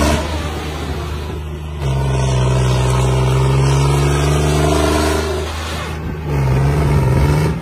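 John Deere tractor's diesel engine revving hard while spinning through loose sand, blowing black smoke from its tall exhaust stack. It holds high revs, drops off about five seconds in, then revs up again near the end.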